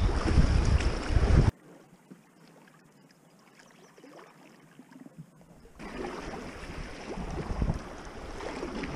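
Swift creek water rushing around an inflatable packraft, with wind buffeting the microphone. About a second and a half in, the sound cuts off abruptly to a quiet calm-water stretch with only faint small ticks. About six seconds in, the rush of water comes back and builds.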